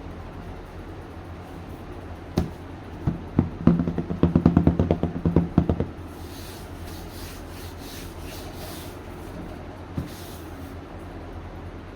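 Hands working with paper and craft tools: a quick run of sharp clicks and taps for about three seconds, then softer rustling and one last click, over a steady low hum.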